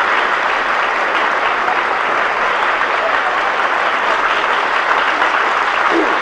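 Audience applauding: steady clapping from many hands, following a sung duet.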